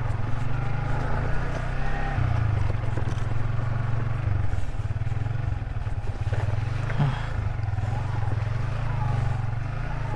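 Yamaha Vixion's single-cylinder four-stroke engine running as the motorcycle is ridden, its note shifting about two seconds in and again around four and a half seconds.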